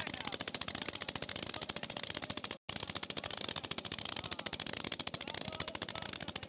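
A passenger boat's diesel engine running steadily, its exhaust a fast, even chatter of pulses. The sound drops out for an instant about two and a half seconds in.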